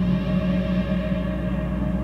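Ambient electronic music: sustained, layered drone tones with echo over a steady low bass drone, a brighter upper layer swelling in at the start.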